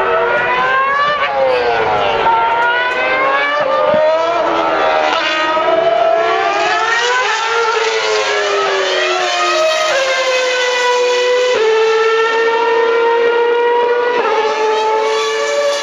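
2012 Formula One cars' 2.4-litre V8 engines at high revs through a corner. Early on the revs fall in sharp steps as the cars brake and downshift, then they climb hard as the cars accelerate away, broken by quick upshifts about ten, eleven and a half and fourteen seconds in. More than one car is heard at once.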